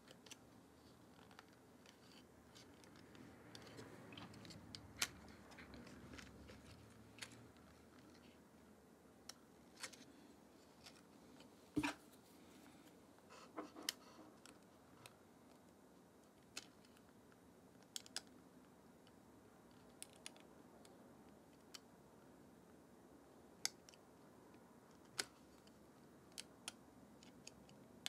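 Faint, irregular small clicks and taps of metal tweezers against the opened Nikon Z50's body and ribbon-cable connectors as the cables are worked into place, over quiet room tone. The sharpest click comes about twelve seconds in.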